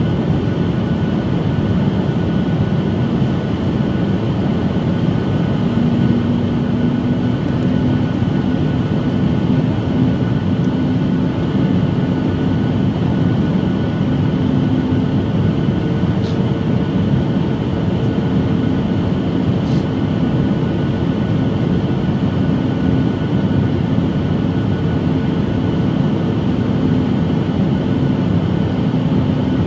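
Steady cabin roar of a Boeing 737 MAX 9 descending toward landing, its CFM LEAP-1B engines and the rushing airflow heard from a seat over the wing. A faint steady hum comes in about six seconds in, and a second, higher hum joins partway through.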